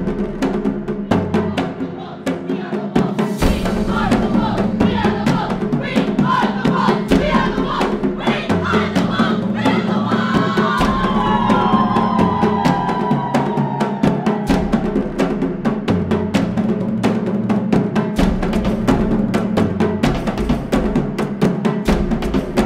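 Drum-heavy music score with a steady pounding beat over a low droning bass. Through the middle a group of girls shout and whoop a team cheer over the music.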